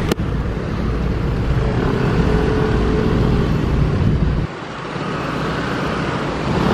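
Street traffic: cars and other vehicles running past with a steady low rumble, which eases off about four and a half seconds in. A sharp click comes right at the start.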